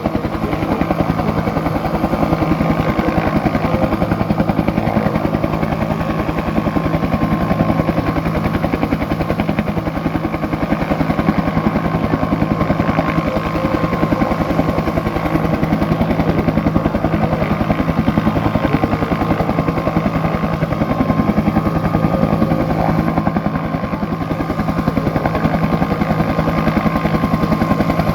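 Bell UH-1 'Huey' helicopter running with its rotor turning: a rapid, even rotor beat over a steady turbine whine.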